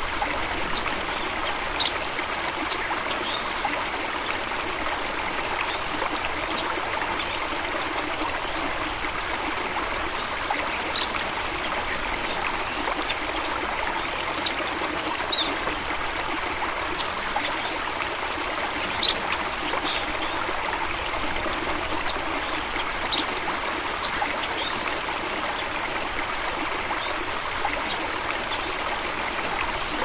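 A stream running steadily as a continuous, even rush of water. Brief high ticks are scattered through it, the sharpest about 19 seconds in.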